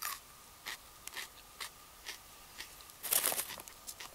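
A handful of short mouth clicks and smacks from picking at the teeth with a finger. About three seconds in, snack packaging begins to crinkle.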